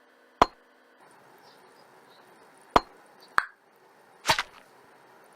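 Four sharp, short clicks or pops: one about half a second in, two close together near the three-second mark, and a doubled one just past four seconds, over a faint steady hum.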